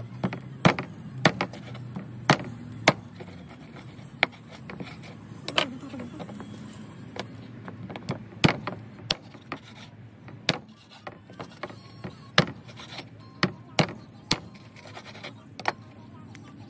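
Cleaver chopping raw chicken into pieces on a plastic cutting board: irregular sharp chops, some half a second apart, others a few seconds apart.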